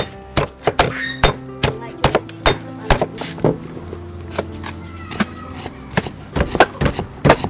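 A stone pestle pounding lemongrass in a stone mortar, then a cleaver chopping through a root onto a wooden chopping board: a run of sharp, irregular knocks, about two or three a second, over background music.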